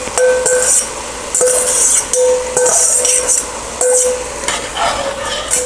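A metal utensil scraping chopped onion and bell pepper out of a stainless steel mixing bowl, about six strokes, the bowl ringing briefly with each scrape.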